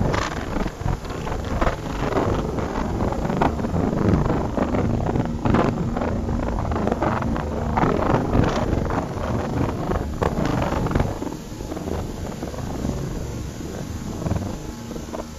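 Speedboat running at speed: wind buffets the microphone hard over the steady hum of the boat's motor and the rush of water along the hull.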